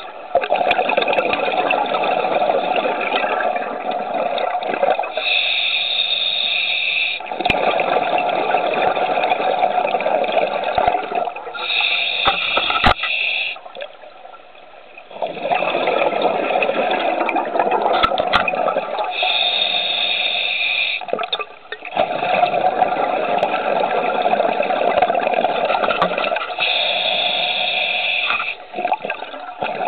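Scuba diver breathing through a regulator: a short hissing inhalation about every seven seconds, each followed by a long bubbling exhalation.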